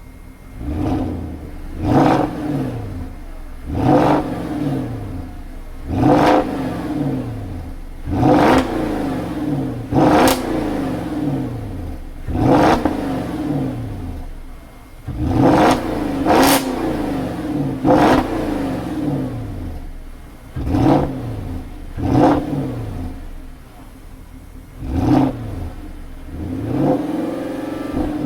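Porsche 955 Cayenne S V8 exhaust, fitted with a Cayenne Turbo muffler and tips, being free-revved: about a dozen quick throttle blips roughly every two seconds, each falling back to a steady idle.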